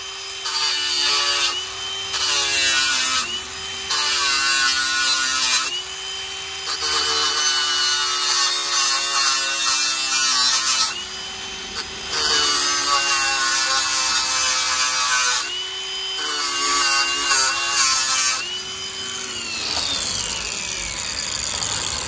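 A handheld power tool running at high speed, with a steady whine, cutting away part of a fin beside the ignition coil in repeated short passes. A loud rasp of cutting comes and goes over the motor tone, and the motor winds down near the end.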